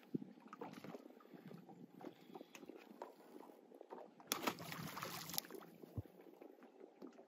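Small waves lapping against a fishing boat's hull, with scattered light clicks and knocks. About four seconds in, a burst of splashing lasting about a second as a hooked bass is pulled out of the water.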